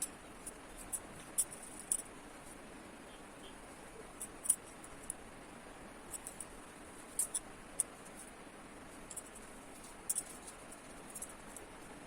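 A paintbrush working on watercolour paper: faint scratchy strokes with small, irregular clicks over a steady low hiss.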